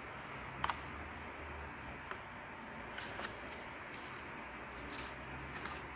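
A few faint clicks and light handling noises from a Samsung laptop keyboard being lifted out and turned over by hand, over a steady low hiss.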